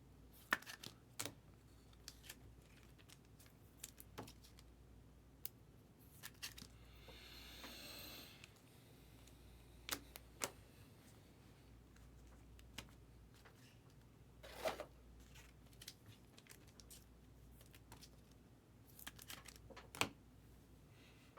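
Trading cards being slipped into plastic sleeves and rigid toploaders: quiet scattered clicks and taps of plastic handling, with one longer sliding rasp about seven seconds in.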